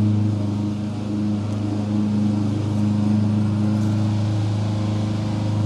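Lawn mower engine running at a steady pitch.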